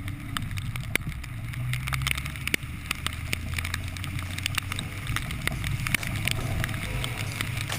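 Toyota AE86 engine running at low revs as a steady low rumble, with many irregular sharp ticks of rain drops hitting the car.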